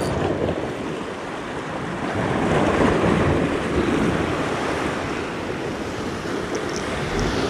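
Sea waves surging and breaking against rocks at the shoreline, a steady rushing wash that swells a little under three seconds in.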